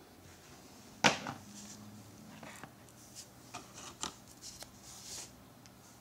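A white plastic keyboard air-mouse remote being handled: one sharp knock about a second in as it meets a hard surface, then a string of softer clicks and rubbing as it is moved about.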